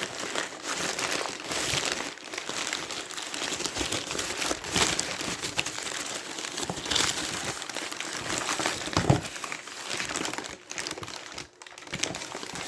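Packaging crinkling and crackling continuously as it is unwrapped by hand, with many short sharp crackles.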